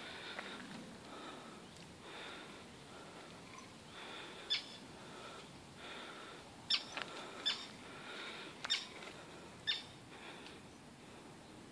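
Birds calling: faint, repeated short notes, with five sharp chirps standing out from about four seconds in.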